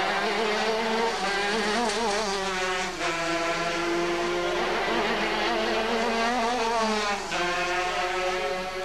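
250cc two-stroke racing kart engines screaming at high revs, more than one at once, their pitch wavering, falling and then climbing as they rev up and change gear around the course.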